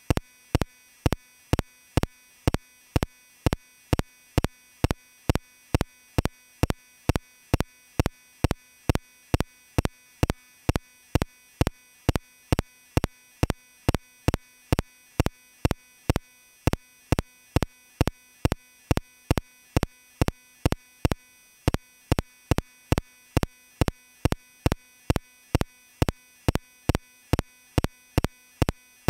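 A steady series of short, sharp ticks, evenly spaced at about two a second.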